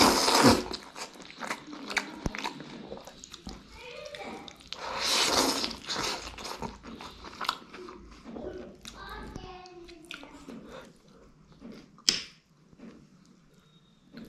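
A person loudly slurping thukpa noodles twice, once at the start and again about five seconds in, with wet chewing and lip-smacking between. A single sharp click comes near the end.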